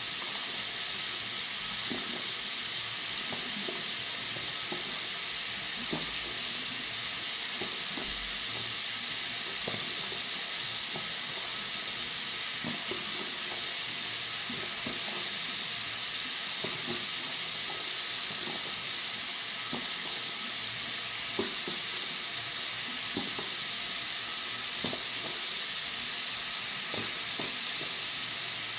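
Water from a tap running steadily into a bathroom sink: an even, fairly high hiss with small irregular splashes in the basin.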